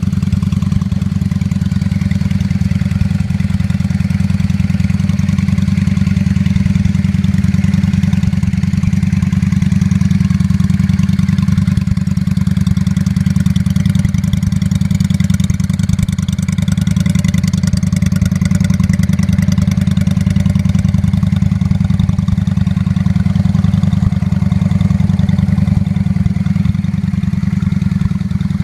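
Honda Shadow 600's V-twin engine running at a steady speed, a deep, even beat with no revving.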